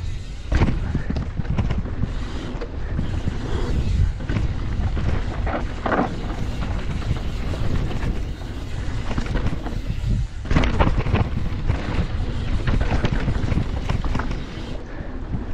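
Wind buffeting the camera microphone as an electric mountain bike is ridden fast over a dirt trail, with a constant low rumble from the tyres and frame. Sharp thuds and rattles come from the wheels and suspension hitting bumps, the loudest about half a second in, around six seconds and around ten and a half seconds.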